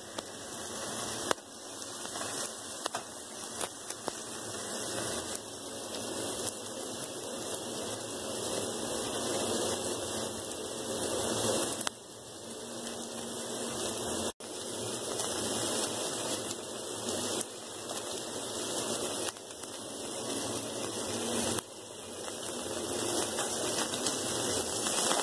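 T-bone steak sizzling in avocado oil in a hot frying pan as it browns: a steady spattering hiss with scattered small pops.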